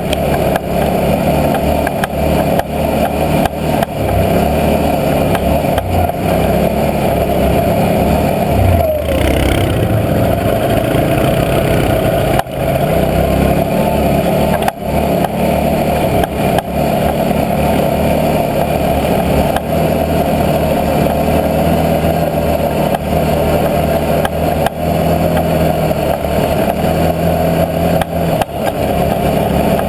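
Can-Am Outlander 650 X mr ATV's V-twin engine running steadily under throttle on a snowy trail, with a few brief dips in level as the throttle eases.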